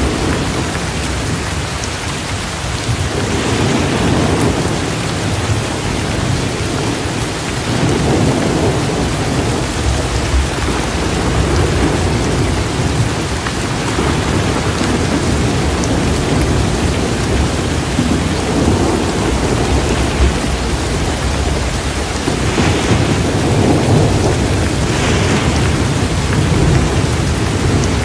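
Steady heavy rain with low rolling thunder, the rumbles swelling and fading several times.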